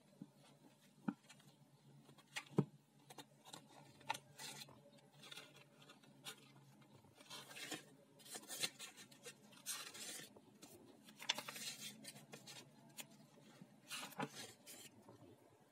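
Paper pages of a paperback book being turned and flipped by hand: soft rustling with a few sharp flaps early on, then several short bursts of riffling pages in the second half.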